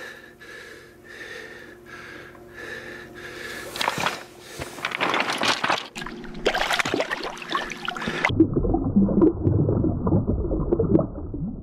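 Water splashing and sloshing as a lake trout is handled and released in shallow water at a rocky shore, loudest from about four seconds in. Just after eight seconds the sound suddenly turns to a muffled low rumble.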